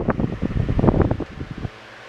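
A vintage Kord 12-inch electric table fan running, with a loud, irregular, rapid flutter that stops abruptly about one and a half seconds in. What remains is the fan's quieter, steady hum.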